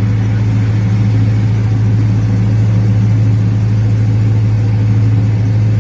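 Steady low drone of a miniature zoo train's engine running at an even speed, heard from an open passenger car as it rolls along. The hum holds one pitch throughout, with no change in speed.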